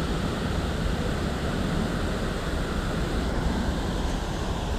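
Steady rushing of river water spilling over a low weir, with wind buffeting the microphone.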